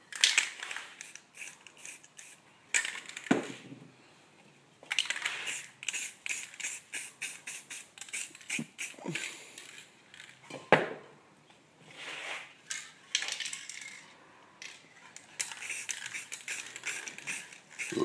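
Aerosol spray paint cans being shaken, the mixing ball rattling inside at about four clicks a second, in several runs, with short hissing bursts of paint spray between them.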